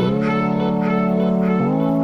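Background music: held notes that change about a second and a half in, with a quick repeating higher figure over them.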